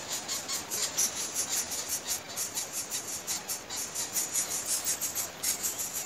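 Nestlings squeaking from their nest: a fast, uneven run of short, high-pitched cheeps, several a second, with a brief break about five and a half seconds in.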